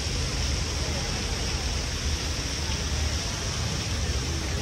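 Outdoor city street ambience: a steady rushing wash of noise over a low, unsteady rumble, with faint voices of passers-by.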